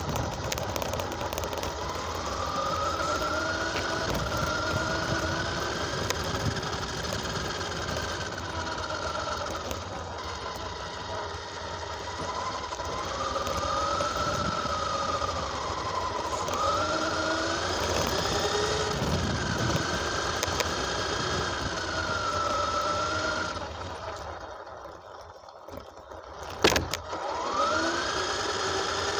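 RC car's motor running, its whine rising and falling in pitch as the throttle is worked. Near the end it eases off almost to quiet, there is one sharp knock, and then it revs up again.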